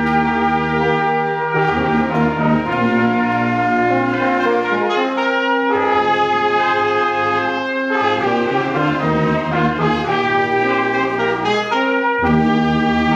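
Brass band of trumpets, euphonium and sousaphone playing a tune in held chords that change every second or two, the low bass notes dropping out briefly a few times.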